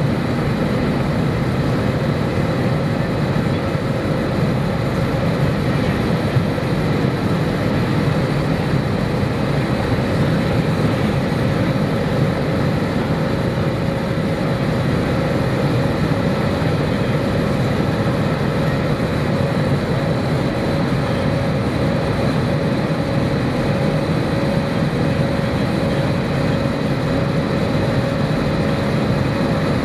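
Airbus A320 jet engines and rushing air heard inside the passenger cabin during the climb after takeoff: a steady drone with a faint steady whine running through it.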